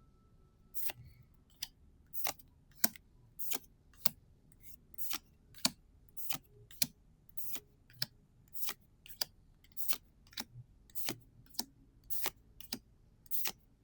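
Gundam Card Game trading cards being flicked through one at a time from a pack, each card giving a short crisp snap, about two a second.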